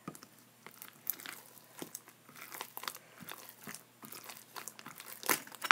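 Slime being mixed with lotion, making irregular sticky crackles and clicks, with one louder pop a little past five seconds in.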